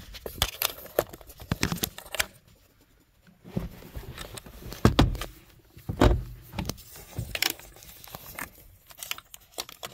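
Handling noise from steering-wheel reassembly: irregular clicks and rattles of wiring and plastic connectors being pulled through, with two louder knocks about five and six seconds in.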